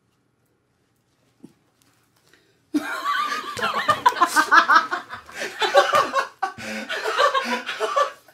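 Near silence with a faint click, then, nearly three seconds in, people burst out laughing hard, in loud, breathy gusts.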